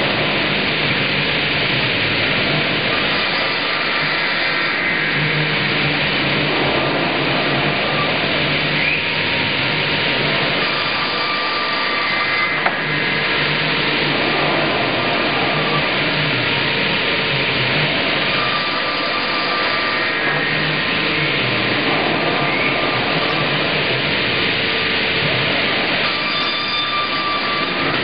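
Automated double-bladed circular sawmill running and cutting a log, its two circular saw blades set at right angles spinning through the wood as the carriage feeds it past. The sawing is a steady, loud rush of machine noise without pauses.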